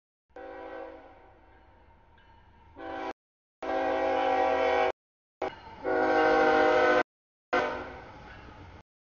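CSX freight locomotive's air horn sounding for a grade crossing in several long blasts with short breaks. The horn grows louder as the train approaches.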